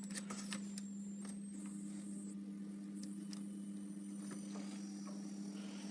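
Refrigerator compressor starting up about one and a half seconds in, adding a second steady low hum over a constant electrical hum, with a few faint clicks from handling the control board.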